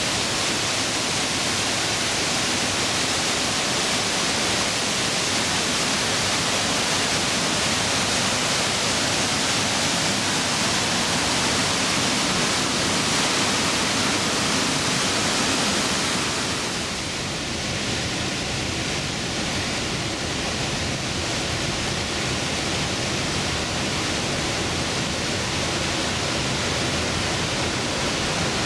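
The Trümmelbach Falls, glacier meltwater pouring down through a rock gorge inside the mountain: a loud, steady rush of falling water, turning a little duller about seventeen seconds in.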